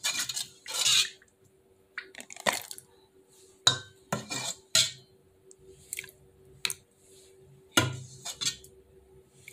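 A metal ladle clinking and scraping against a stainless steel pot as thick soup is ladled into plastic containers: irregular sharp clinks every second or so, with short scrapes in between.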